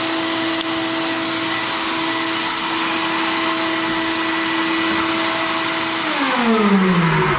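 Media blast cabinet running: a steady hiss of blasting air and abrasive over a steady motor hum. Near the end the hiss stops and the motor hum falls in pitch as it winds down.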